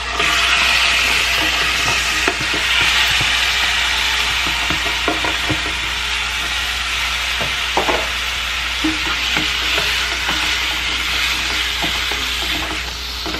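Seasoned raw chicken pieces sizzling in hot coconut oil in a frying pan. The sizzle starts suddenly as they go in and eases a little, with occasional taps and scrapes of a spatula stirring them.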